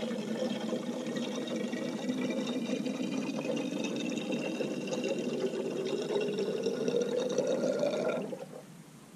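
Gasoline pouring through a Husqvarna combi can's no-spill spout into a chainsaw's fuel tank, filling steadily with the pitch creeping up as the tank fills. About 8 seconds in it cuts off suddenly: the spout shuts itself off as the fuel reaches the nozzle.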